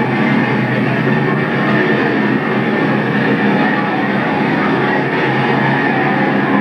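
Rock music playing steadily and loudly.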